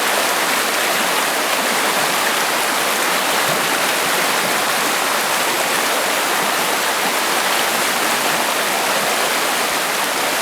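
Flooded creek running high, a steady loud rush of fast turbulent water.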